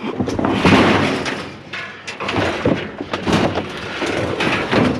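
Sheet metal from a dismantled washing machine clattering, banging and scraping as its parts are hauled by hand, with a run of knocks and thuds throughout.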